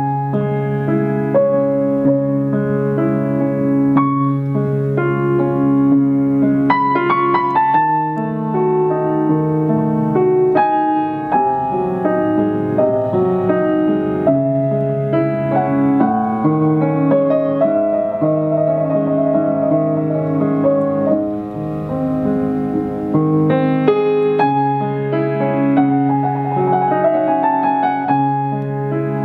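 Cristofori baby grand piano played: chords over a held bass, with quick runs up the keyboard about seven seconds in and again near the end.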